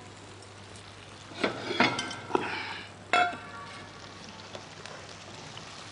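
A ladle scooping chicken curry out of a clay pot into a bowl, with scrapes and clinks around one and a half to two and a half seconds in and a sharp ringing clink at about three seconds. Under it runs a faint steady sizzle from the curry still simmering in the hot clay pot after the flame is off.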